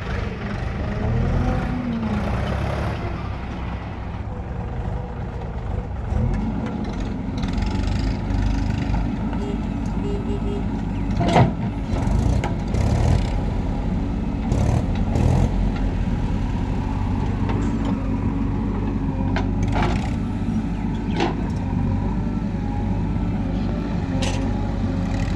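Diesel engine of a JCB 3DX backhoe loader running steadily while loading mud, its pitch rising about six seconds in as it works harder. Several sharp knocks and clanks sound over it.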